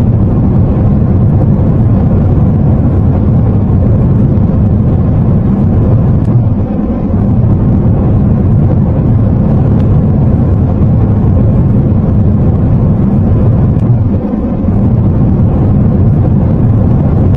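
Steady low rumble of a jet airliner in flight, loud and even, easing slightly a couple of times.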